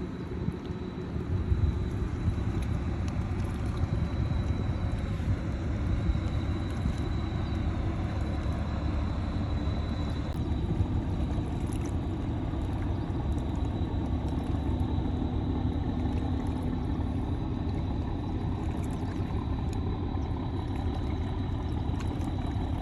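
A steady low rumble with a hiss over it and no clear pitch, holding at an even level throughout.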